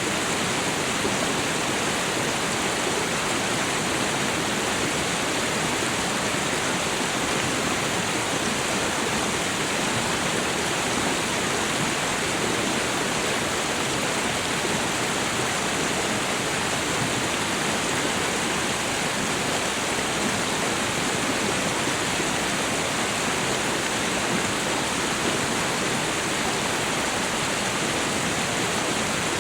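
Meltwater running in a stream and pouring over a small waterfall: a steady, even rush of water.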